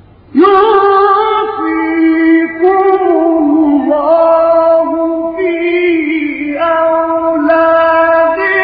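A male Quran reciter's voice in melodic chanted recitation. After a short pause, a high phrase begins suddenly and runs on in long held notes that bend and turn in ornaments, without a break.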